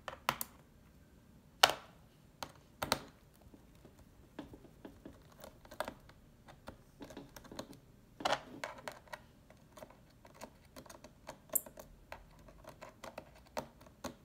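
Irregular small clicks, taps and scrapes of a small screwdriver and fingers working screws out of an HP laptop's plastic base, with a few sharper clicks among them.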